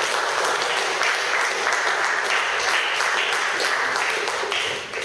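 Audience applauding, many hands clapping densely, then thinning out near the end.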